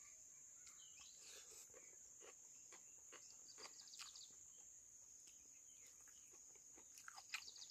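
Near silence: a faint, steady, high-pitched drone of insects, with a few faint scattered ticks.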